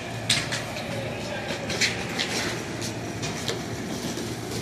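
An Amtrak passenger train standing at a station platform with its engines idling, a steady low hum, with a few brief sharp clicks and hisses over it.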